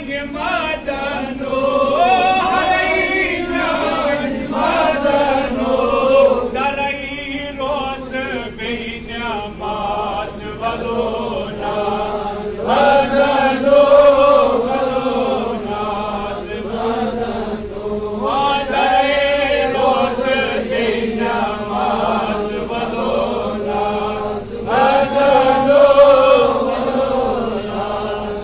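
A man's voice chanting a Sufi devotional poem (kalam) in long, wavering sung lines, pausing briefly between phrases.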